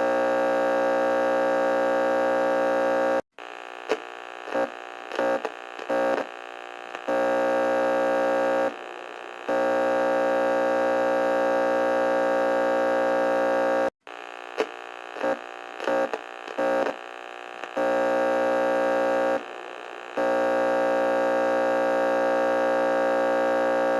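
Emergency alert alarm tone: a loud, steady tone that twice breaks into a stutter of short beeps for a few seconds, then holds steady again, repeating in a cycle of about ten seconds.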